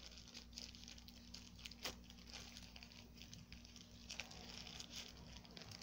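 Faint rustling and crinkling of soft white wrapping being handled and unwrapped from a pair of glasses, with scattered small ticks and one sharper tick about two seconds in.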